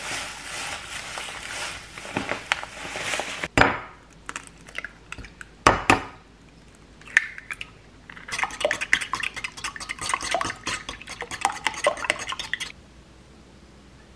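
Breadcrumbs pouring from a plastic bag onto a tray with a rustling hiss, ending in a sharp knock. A few sharp knocks follow as eggs are cracked against a ceramic bowl. Then about four seconds of fast, even clicking as the eggs are beaten in the bowl.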